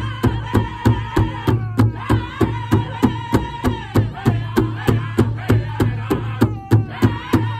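Powwow drum group: several men strike one large shared drum in a steady beat, about four strokes a second, while singing together in high, held notes.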